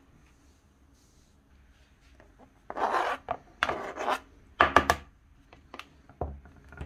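A knife scraping diced pickled cucumber off a plastic cutting board into a bowl: three short scrapes about a second apart, then a few lighter knocks near the end.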